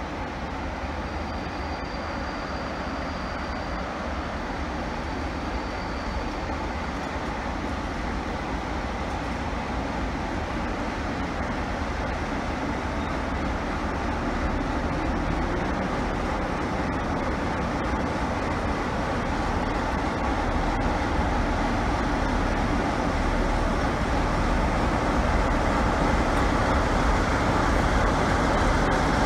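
Two Class 47 diesel locomotives, the train engine and a second one coupled behind, running their Sulzer twelve-cylinder engines as they haul a rake of passenger coaches through the station. The low engine rumble and wheel-on-rail noise grow steadily louder as the lead locomotive draws past and the second comes alongside.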